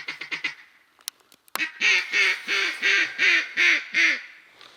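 Mallard-style quacking: a fast run of short notes fading out at the start, then seven loud quacks, each dropping in pitch, about three a second, ending about a second before the end.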